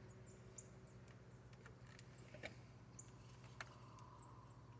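Near silence: a faint steady low hum with a few faint, scattered ticks.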